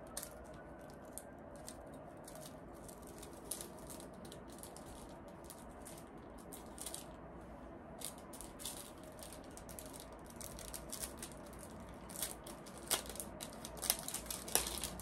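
Hands handling small jewelry packaging: soft, irregular crinkles, clicks and rustles of paper and a small bag, growing busier over the last few seconds.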